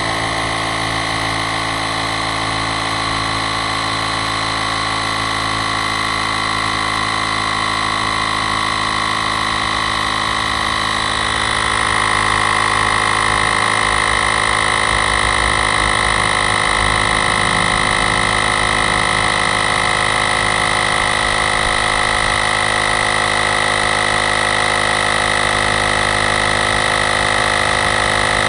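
AUXITO A501 cordless portable tire inflator's compressor running steadily, pumping up an electric bike's rear tire from 18 toward its 30 psi preset. It gets slightly louder about twelve seconds in as the tire pressure builds.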